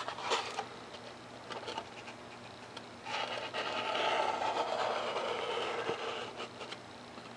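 Light handling clicks, then a few seconds of scratchy rubbing starting about three seconds in, as the nozzle of a foam-safe CA glue bottle is drawn along the cut in a 3 mm Depron foam wing.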